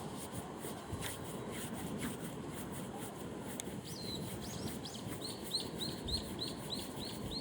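A small bird singing a quick run of identical repeated notes, about three a second, starting a little past halfway, over a steady rushing of river water.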